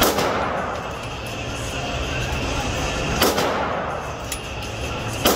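Three handgun shots on an indoor range, each followed by a short echo off the range walls: one at the start, one about three seconds in, and one near the end.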